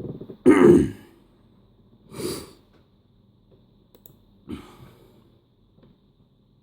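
A person sighing heavily into the microphone, followed by two softer breaths a couple of seconds apart, over a faint steady hum.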